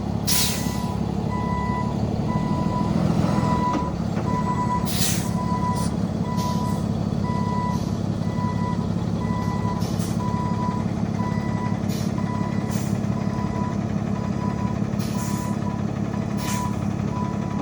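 Freightliner M2 box truck running with its reverse alarm beeping steadily, about once a second, over the low rumble of the engine. Short hisses of air break in several times.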